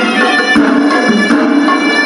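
Hewisi temple music: a horanewa, the Sri Lankan double-reed shawm, playing a held, stepping melody over drum strokes.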